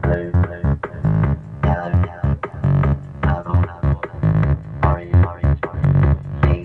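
Electronic dance music with a heavy, pulsing bass beat and synthesizer lines, played loud.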